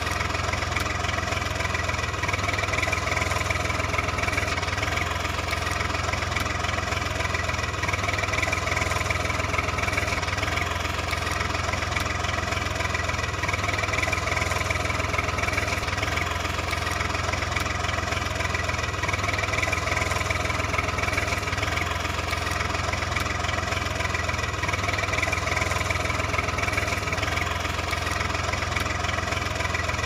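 A tractor engine idling at a steady, unchanging pitch and level, with a strong low hum.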